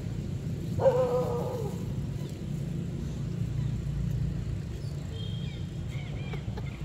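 A macaque gives one short, slightly falling coo-like cry about a second in, over a steady low rumble; faint high bird chirps come near the end.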